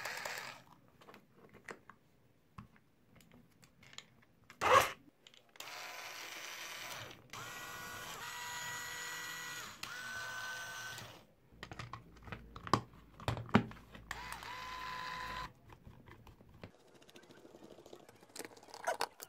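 Small cordless electric screwdriver with its housing open, its motor and planetary gearbox running in several bursts of a few seconds each, with a whine that steps up and down in pitch. Before the motor runs there are plastic handling clicks and one sharp knock. Near the end come small clicks of screws going back into the plastic housing.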